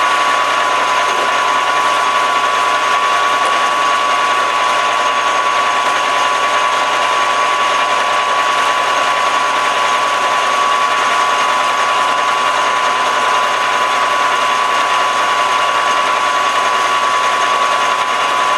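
Metal lathe running with its spindle turning and no cut being made: a loud, steady running noise with a high, even whine from the motor and gearing.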